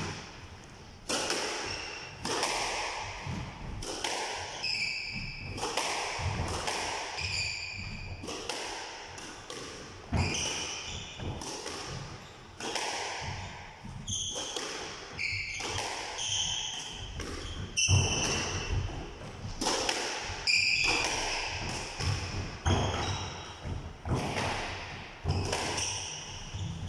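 Squash rally: the hard rubber ball cracking off rackets and walls about once a second, mixed with short high squeaks of court shoes on the floor.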